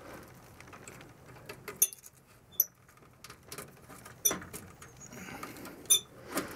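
Insulated furnace wires and their plastic connectors being handled and sorted by hand: light rustling and scraping, with a few sharp little clicks and squeaks.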